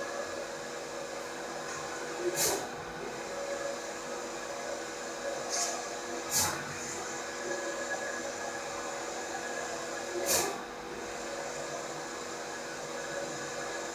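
Allwin C512 large-format banner printer running, a steady mechanical hum with a constant tone. Four sharp clicks come at irregular moments.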